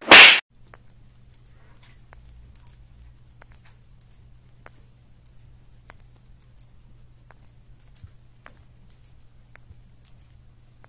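A brief loud burst of noise at the very start, then faint, scattered little clicks and taps over a low hum: a yellow Indian ringneck parakeet at play with a small plastic ball on a couch.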